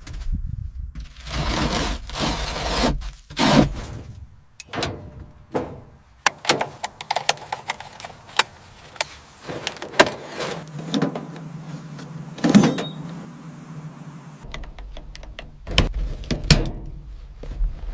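A string of irregular knocks and clicks, with a hiss lasting about two seconds near the start.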